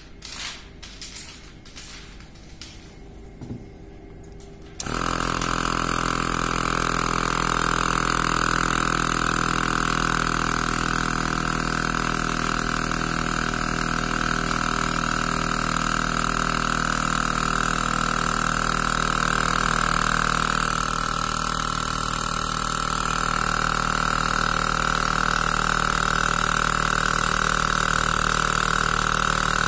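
Small 12-volt car air compressor switched on about five seconds in and running steadily, pumping air into a car's coolant expansion tank to pressure-test the tank cap. Before it starts there are only a few light clicks.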